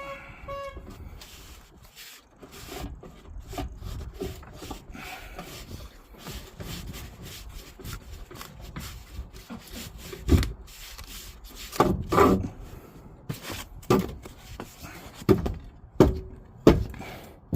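Wooden support blocks being worked loose and pulled out from under a fuel tank: scraping and rubbing of wood, then from about ten seconds in, a run of sharp knocks.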